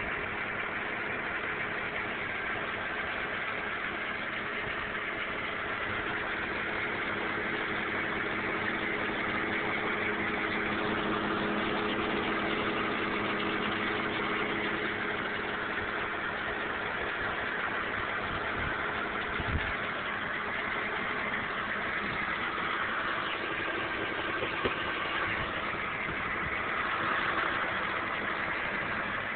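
BMW E46 engine running steadily, with a metallic rattle in the background like a loose piece of sheet metal, the fault the owner is trying to trace. Two short sharp ticks stand out about two-thirds of the way through.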